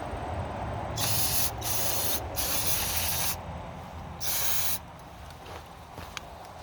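Four short bursts of pressurised spray hissing, each half a second to a second long, over a steady low hum.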